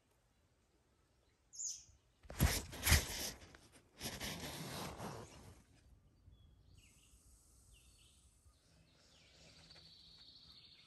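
Rustling and handling of a nylon hammock tent and its mesh as someone moves inside it, loudest as two sharp scuffs about two and a half seconds in, followed by a longer rustle. Birds call faintly in the forest behind.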